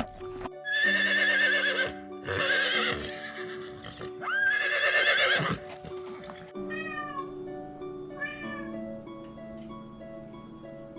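A cat meowing: three long, loud meows, the third rising sharply at its start, then two shorter, fainter ones, over background music.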